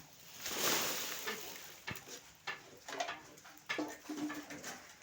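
Fish crackers frying in hot oil: a burst of sizzling hiss for about a second and a half, then scattered clicks and knocks of the crackers and utensil in the pan.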